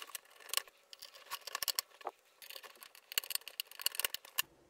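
Small hand screwdriver driving pointed self-tapping screws into a cassette deck's casing: a string of irregular small clicks and ticks as the screws are turned in.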